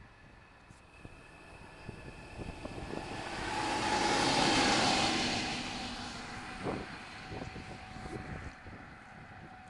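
DB class 294 diesel-hydraulic shunting locomotive running light past, growing louder to a peak about four to five seconds in, then fading as it moves away.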